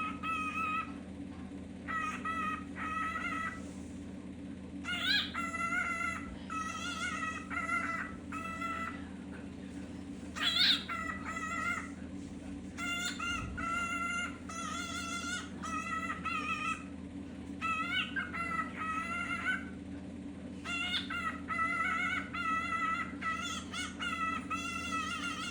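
A cockatiel calling again and again in short runs of warbling whistled notes, with two sharper rising squawks; this repeated calling is typical of a cockatiel left alone and calling for its absent companion. A steady low hum runs underneath.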